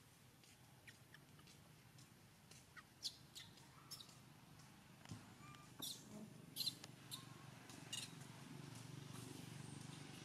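Faint, short, high-pitched animal squeaks and chirps, a dozen or so scattered through, over a low rumble that grows louder near the end.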